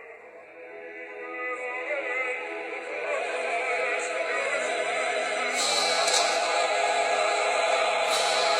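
Operatic singing with heavy vibrato, building louder over the first few seconds and then holding.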